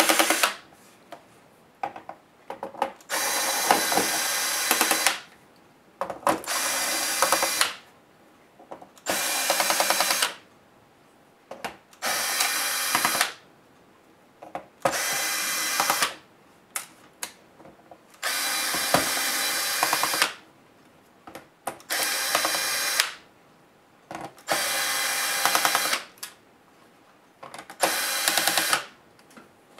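Cordless electric screwdriver backing screws out of a laptop's plastic bottom case in about nine short runs of one to two seconds each. Small clicks come between the runs as the screws are handled.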